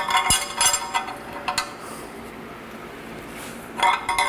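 Sharp metallic clinking in two short flurries, one in the first second and a half and one near the end, as a wrench turns the nut on a homemade wet-sleeve puller's threaded rod. It is the tool being tightened to draw a cylinder sleeve up out of the diesel engine block.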